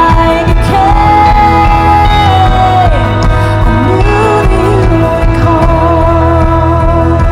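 Worship band playing a slow song, with a singer holding long notes over a steady low bass; one long held note slides down about three seconds in.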